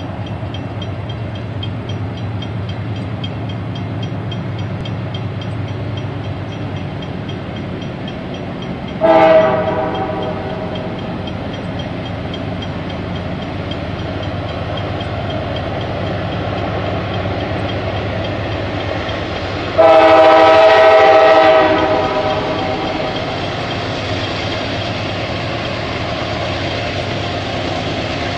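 Diesel freight train approaching, its locomotives giving a steady low rumble. The lead locomotive's multi-chime air horn sounds twice: a short blast about nine seconds in and a longer blast of under two seconds about twenty seconds in.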